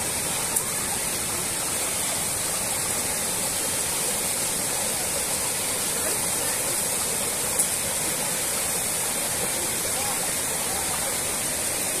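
Waterfall: a steady rush of falling water, with two brief clicks, one just after the start and one about two-thirds of the way through.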